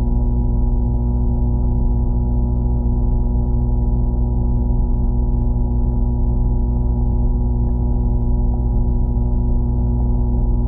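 A steady droning hum: several held tones over a low rumble, with no change in pitch or level.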